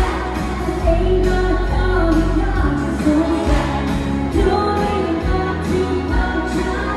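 Country band playing live: women singing to acoustic guitars over a steady bass beat.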